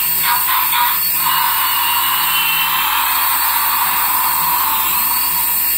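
Battery-operated light-up toy playing an electronic sound effect: a steady whooshing hiss through its small speaker.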